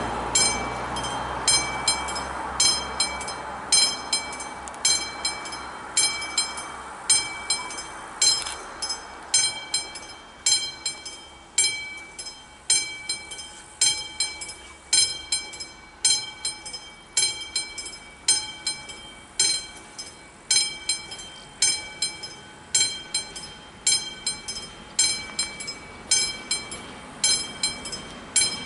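Level-crossing warning bells striking about once a second, each strike ringing on with a bright metallic tone. A low rumble fades away over the first several seconds.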